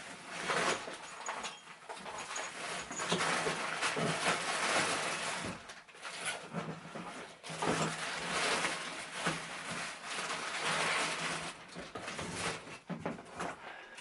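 Rummaging to find a bicycle headset: irregular rustling and handling noise with small knocks and clatters.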